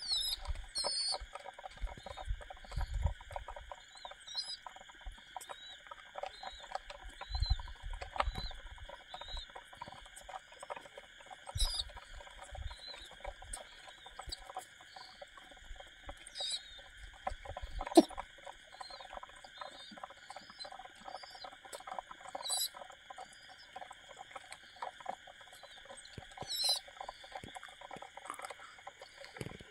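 A flock of domestic pigeons pecking scattered grain off a hard floor: a dense patter of small beak taps, with now and then a low wing flutter as the birds jostle, and one sharp tap a little past halfway.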